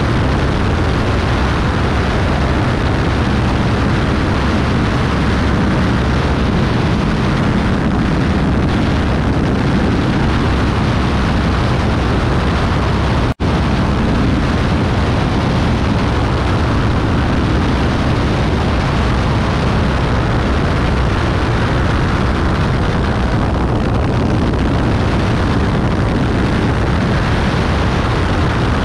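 Beechcraft Bonanza B35's six-cylinder piston engine and propeller running steadily in flight: a loud, unbroken drone, heaviest in the low range. The sound drops out for a split second about 13 seconds in.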